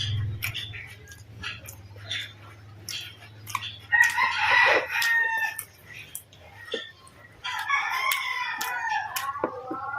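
A rooster crowing twice, a shorter crow about four seconds in and a longer, falling crow near the end. Short clicking mouth and chewing sounds from eating run underneath.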